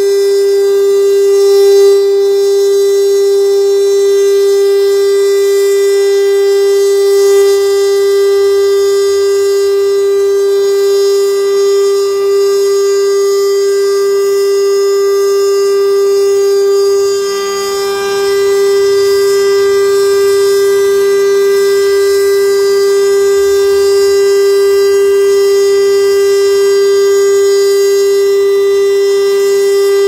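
STL-10 three-horn outdoor tornado warning siren sounding a steady, unwavering tone during a test. The tone holds one pitch throughout, with a brief dip in loudness about 17 seconds in.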